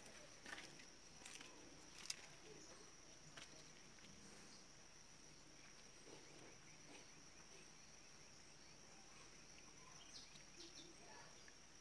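Near silence: a faint, steady, high-pitched insect drone in the background, with a few soft clicks in the first few seconds.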